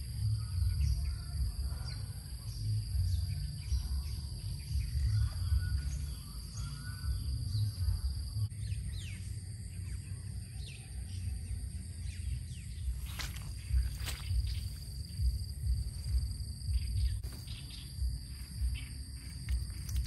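Outdoor rural ambience: birds chirping in short repeated calls over a steady high-pitched drone and a low, fluctuating rumble, with a few sharp clicks.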